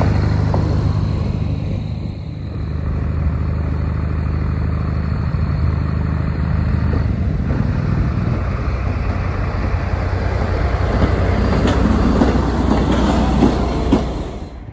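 Dv12 diesel-hydraulic locomotive's engine running with a steady low drone as it moves at shunting speed, briefly dipping in loudness about two seconds in.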